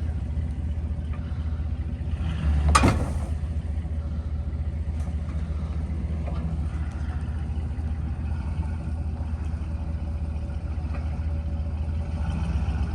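Steady low rumble of a car rolling slowly down the road, heard from inside the cabin, with one sharp loud clunk about three seconds in.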